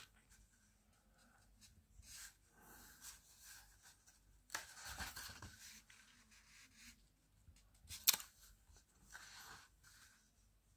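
Glossy pages of a thick hardcover book being turned by hand: a run of soft paper swishes and rustles, the loudest about five seconds in, with a sharp snap of paper about eight seconds in.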